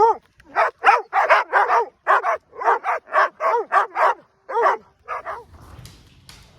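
A dog barking over and over, about fifteen short barks in quick succession, stopping about five seconds in.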